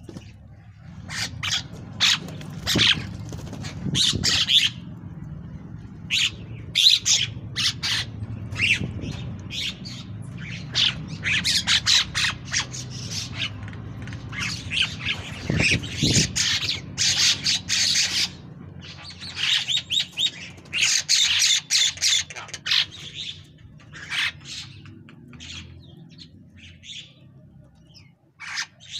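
A group of bank mynas calling with many harsh, overlapping squawks and chatter.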